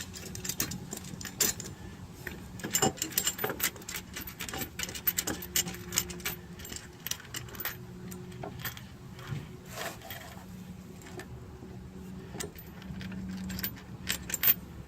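Small metal clicks and clinks of bolts and washers being handled and threaded finger-tight through a steel running-board mounting bracket into the truck's frame, with a faint steady hum underneath.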